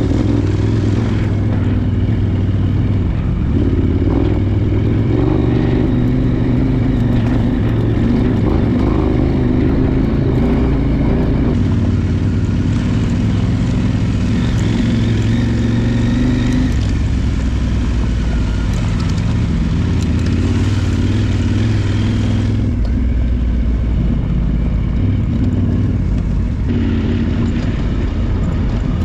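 Adventure motorcycle engine running steadily while under way, with a steady low rumble; the upper part of the sound drops back a little about two-thirds of the way through.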